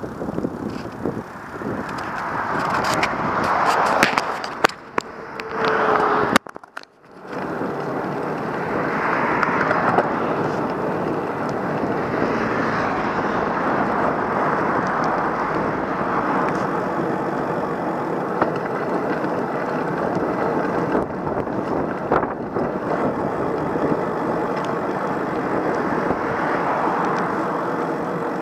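Steady noise of a vehicle on the move, with a few sharp clicks about three to five seconds in and a brief drop-out near seven seconds.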